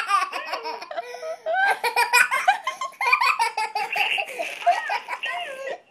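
A toddler laughing and giggling in high-pitched bursts, one after another.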